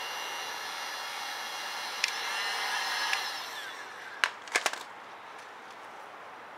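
Harbor Freight heat gun running on its low setting, a steady blower whine that winds down a little past three seconds in as it is switched off. A few sharp clicks follow a second later.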